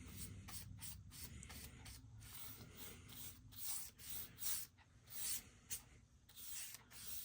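Paintbrush stroking varnish onto a wooden speaker cabinet: a run of soft brushing swishes, one every half second or so, clearer in the second half.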